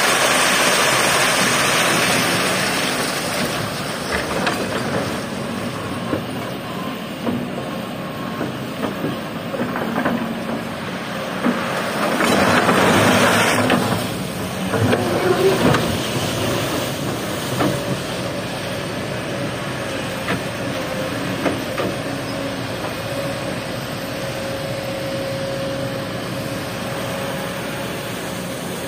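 Kobelco hydraulic excavator's diesel engine and hydraulics running steadily while it works in a river. Near the start, sand and gravel pour from its bucket onto a steel mesh screen with a loud rushing rattle, and around the middle there is a second rush as water streams out of the bucket lifted from the riverbed.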